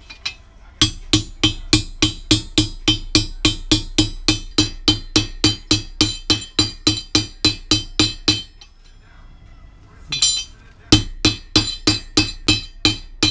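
Hammer blows driving a new steel bearing race into a differential housing, with the old race used as a driver: a long run of sharp metallic strikes at about four a second, a short pause, then a second run.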